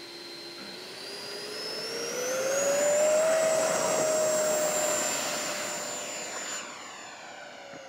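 An 80 mm electric ducted fan in an RC jet spooling up to full throttle for its takeoff run, a whine rising steadily in pitch. It is loudest about three seconds in, then fades and falls in pitch as the jet climbs away.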